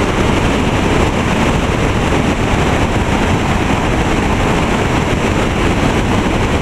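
Mountain creek rapids rushing over rocks, a loud, steady wash of white water.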